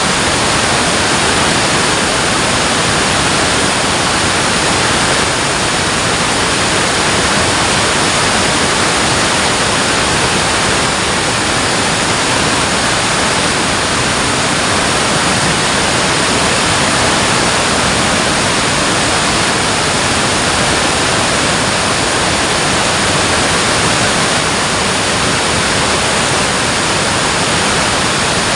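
Dam water pouring and rushing, a loud steady roar of falling water with no change.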